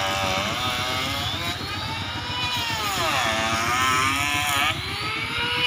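Two-stroke chainsaw running under load, cutting ulin (Borneo ironwood) timber; its pitch sags and recovers several times as the chain bogs in the cut and frees up again.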